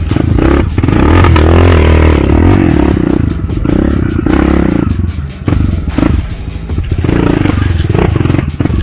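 Trail motorcycle engine revving up and down as the bike rides off over rough ground, with clattering and scraping knocks.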